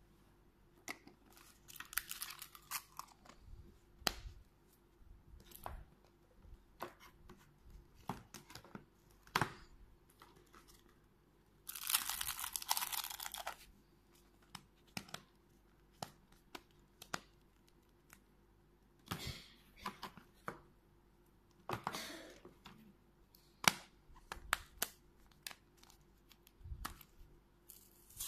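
Hands handling plastic surprise-egg capsules and small toy figures: scattered clicks and taps of hard plastic, with crinkling and tearing of packaging. The longest tearing burst, lasting nearly two seconds, comes about twelve seconds in, with shorter ones later.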